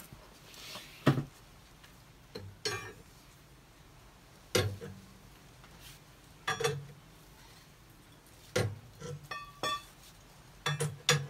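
A scissor jack being cranked by hand to lift a car: separate metallic clinks and knocks about every two seconds, some ringing briefly, with a quick cluster of clinks near the end.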